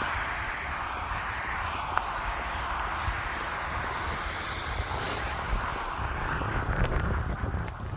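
Steady rushing roar of wind and passing road traffic in a snowstorm, with a deep rumble underneath.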